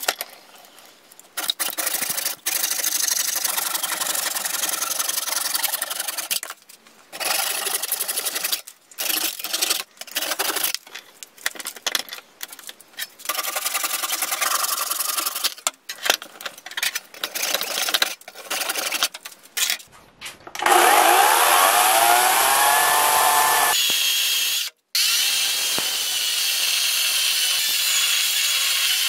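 A hand saw cutting through an oak root in repeated strokes with short pauses. About twenty seconds in, a cordless chainsaw starts with a whine sweeping up in pitch, then runs steadily as it cuts into the root.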